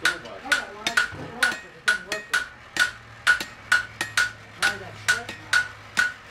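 Hammer striking hot iron on an anvil in a steady rhythm, about two blows a second, each blow with a bright ringing anvil tone.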